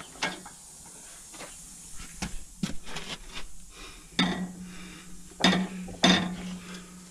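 Metal clanks and knocks from the heavy rear-axle trumpet housing of a Versatile 310 tractor and its hoist chain as it is worked back into place, with three loud knocks in the second half. A steady low hum starts with the first of those knocks.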